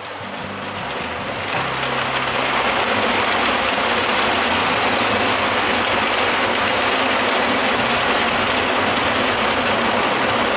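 Hot oil sizzling as marinated mutton in a curd-and-masala paste goes into a pan of frying onions and chillies. The sizzle grows louder over the first two or three seconds as the meat goes in, then holds steady.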